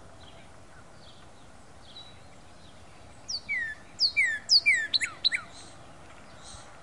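Northern cardinal singing: one phrase of about eight loud down-slurred whistles, coming faster toward the end, starting about three seconds in and lasting about two seconds. Faint short high chirps come before it.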